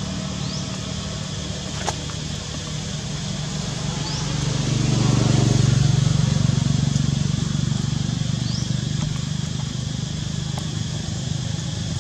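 A motor vehicle's engine runs steadily and grows louder for a few seconds near the middle, as if passing close by, over a steady hiss. Now and then there is a short, faint, high rising chirp.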